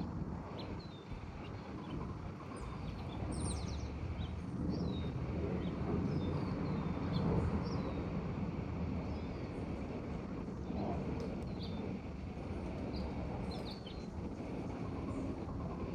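Neighbourhood outdoor ambience: a steady low rumble of background noise with birds chirping now and then, short high chirps scattered throughout.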